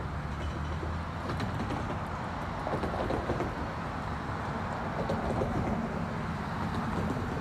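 Steady low engine rumble with a low drone that eases off about two to three seconds in, and a few faint clicks.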